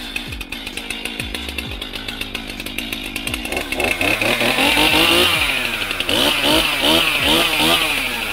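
Stihl MS 261 C two-stroke chainsaw running steadily, then revved up and down in quick repeated throttle blips through the second half, getting louder as it revs.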